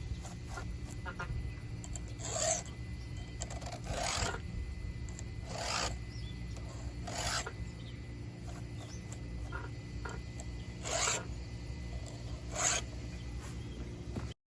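A file rasping across the teeth of a Homelite chainsaw chain, in about six separate push strokes spaced a second and a half to two seconds apart, with a longer gap in the middle. This is the chain being sharpened by hand.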